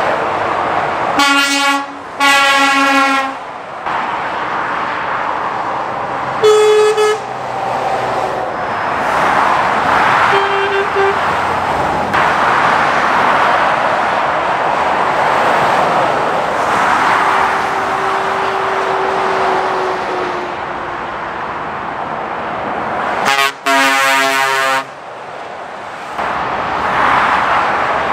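Lorries passing at motorway speed with a steady rush of tyre and engine noise, and horns tooting several times: a double toot about a second in, a single toot around seven seconds, a faint short one around ten seconds, and another double blast near the end.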